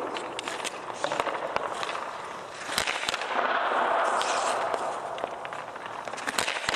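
Hockey skate blades scraping and carving the ice, with sharp cracks of stick and puck. The loudest crack comes about three seconds in, and another cluster comes near the end.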